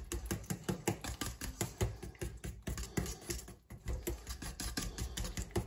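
A metal utensil beating cake batter in a stainless steel bowl by hand, with quick, uneven clicking and scraping against the bowl, several clicks a second.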